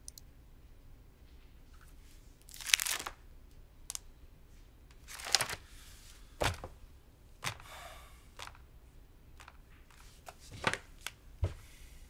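Paper pages being flipped and shuffled on a desk: several short rustles with a few light clicks, and a low thump near the end.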